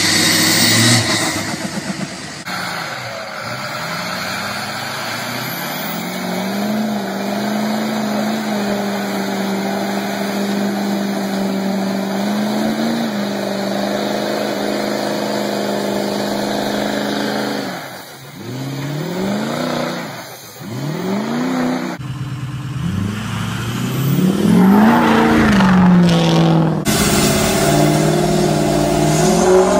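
Ford 6.0 Powerstroke turbodiesel V8 pickups revving in a string of short clips. First a brief rev. Then an engine held at steady high revs for many seconds while a rear wheel spins in mud, dropping and revving up again twice near the end of that clip. Last, revs rising and falling as heard from inside the cab.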